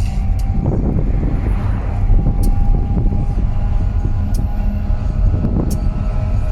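Older GE diesel-electric locomotive in dynamic braking: the brake-grid cooling blowers run with a steady whine over a low rumble, the traction motors working as generators to hold back the train. A brief rush of noise comes about a second in.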